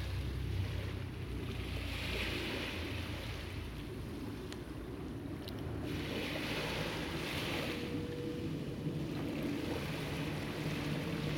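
Sea waves washing onto the shore, surging and easing twice. A low, steady engine hum grows louder near the end.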